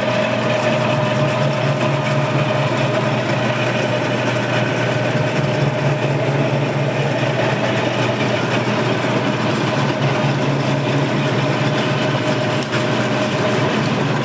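Metal-turning lathe running with the carriage on automatic feed, the tool cutting steadily along the workpiece: a steady machine hum with a constant tone.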